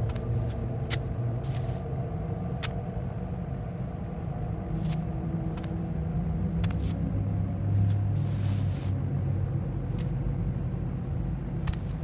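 A steady low rumble with a few held low tones, broken by scattered sharp clicks.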